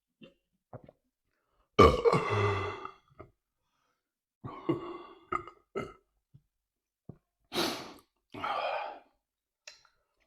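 A man belching: one long, loud burp about two seconds in, followed by several shorter burps.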